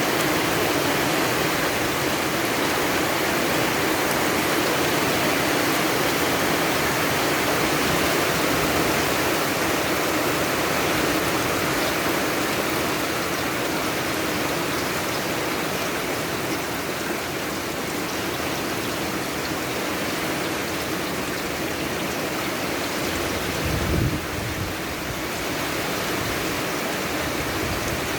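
Steady rain falling, an even hiss. About 24 seconds in there is a brief low thump.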